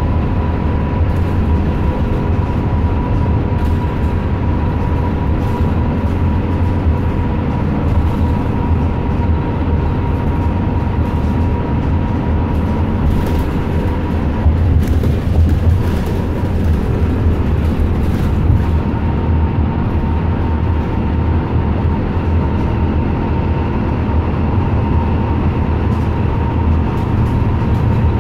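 Transit bus cabin noise while driving: a steady engine and road rumble with a thin, steady high whine. A few light knocks come about halfway through.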